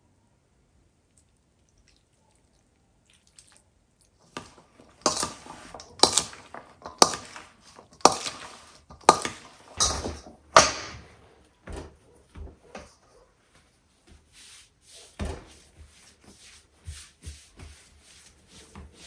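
Knocks and clicks of kitchen work: a few seconds of near silence, then a run of sharp knocks about once a second, followed by lighter, irregular clicks and taps.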